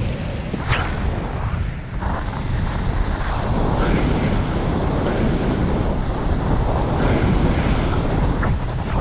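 Wind rushing and buffeting over the microphone of a paraglider pilot's camera in flight, a steady, gusting roar of airflow.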